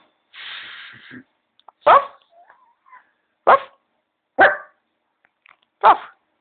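Griffon dog barking four times, single barks spaced about a second and a half apart.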